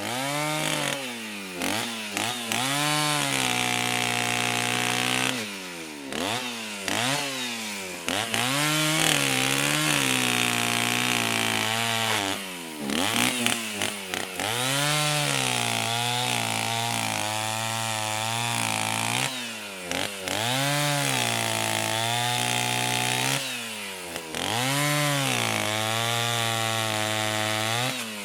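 Chainsaw engine revving up and down repeatedly, held at high revs for a few seconds at a time between quick drops back toward idle.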